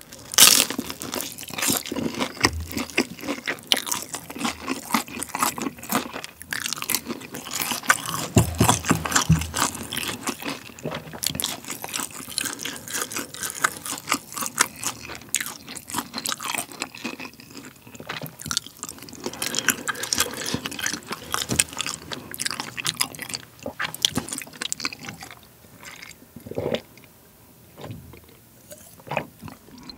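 Close-miked, wet, sticky chewing of chewy rice cakes and potato-starch glass noodles in spicy sauce: dense, irregular mouth clicks and smacks. Near the end it turns quieter as he stops to drink from a glass.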